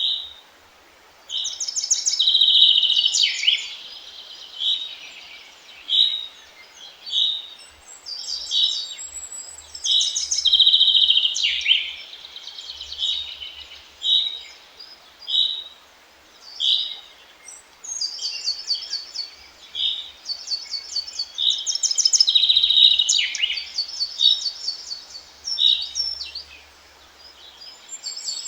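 Wild songbirds singing: one bird repeats a short, high note about once a second, while others sing longer, busier phrases now and then, over a faint steady hiss of background noise.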